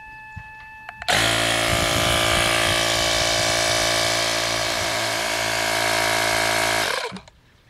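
Fanttik X8 cordless tire inflator's small piston compressor starting suddenly about a second in and running steadily while it pumps up a deflated basketball through an inflation needle, then cutting off near the end as it shuts itself off at its 8 PSI basketball preset.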